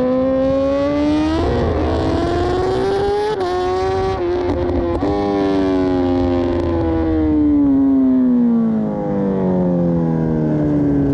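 BMW S1000RR inline-four superbike engine heard from onboard, pulling hard with the revs climbing and a quick gear change a few seconds in. The engine note then falls steadily through the second half as the revs drop.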